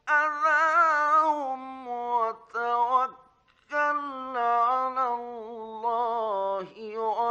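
Male reciter chanting the Quran in a slow, melodic style, holding long ornamented notes, from a 1950s radio recording. There is a short pause for breath about three seconds in before the chant resumes.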